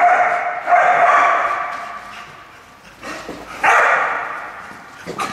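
Dog barking in loud bursts that echo in a large hall: barks at the start and just after, another burst about three and a half seconds in, and a short one near the end.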